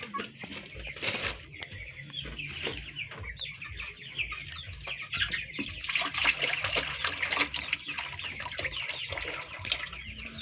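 A flock of chickens clucking and chirping, busiest about six seconds in, with liquid being poured from a plastic jug into buckets.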